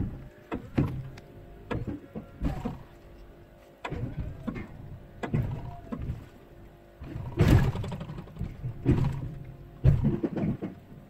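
BOSS V-plow's electric-hydraulic pump running in spurts as the blade is worked from the controller, with a string of clunks and knocks from the moving blade, the loudest three in the second half. The blade retracts too fast: the retraction speed is set too high.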